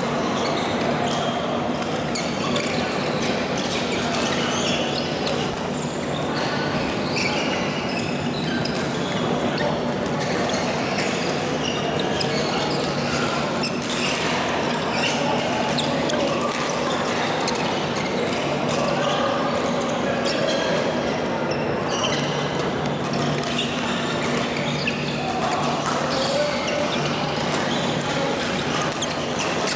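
Echoing badminton-hall din: repeated sharp racket strikes on shuttlecocks and shoe squeaks from several courts at once, over a background of many voices and a steady low hum.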